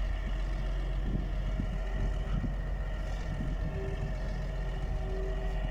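Wheel loader's diesel engine running steadily. A faint steady whine joins in about midway.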